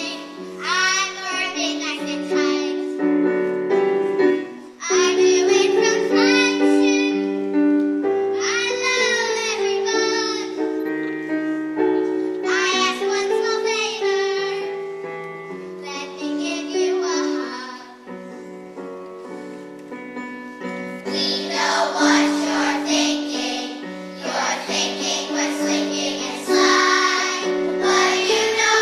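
Music with singing voices: sung phrases a few seconds long over sustained accompaniment notes, the voices fuller from about two thirds of the way through.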